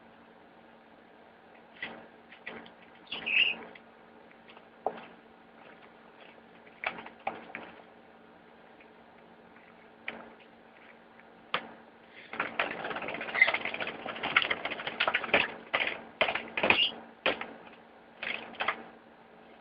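Budgies in a cage: scattered clicks and taps with a few short chirps, then from about twelve seconds in a loud flurry of wing flapping lasting about five seconds as a young budgie beats its wings in place while learning to fly.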